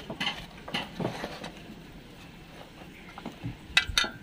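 Rubber diaphragm of a vacuum brake booster being worked out of its metal plate by hand: a few soft scrapes and knocks, then two sharp clicks near the end.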